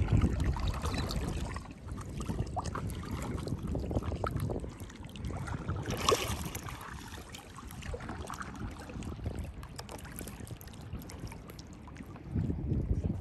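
Choppy lake water lapping and splashing against a paddle board, with wind rumbling on the microphone. A sharper splash comes about six seconds in.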